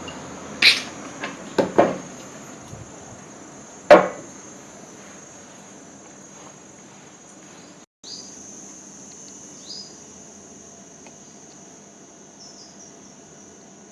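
A handful of sharp knocks and clinks in the first four seconds, the loudest about four seconds in, over a steady high-pitched insect-like drone.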